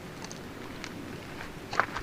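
A few light, scattered clicks and knocks, the loudest just before the end, over a steady low background hiss. These are typical of hand tools and metal parts being handled during motorcycle work.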